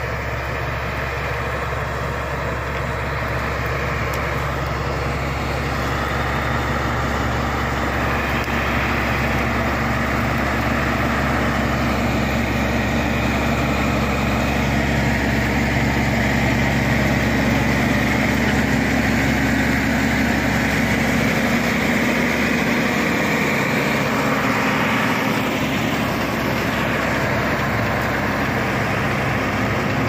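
Shantui SD16 crawler bulldozer's diesel engine running steadily as the dozer pushes soil and brush, with a constant low drone.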